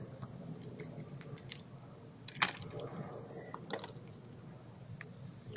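A few sharp clicks and light taps, the loudest about two and a half seconds in, over a faint low background hum.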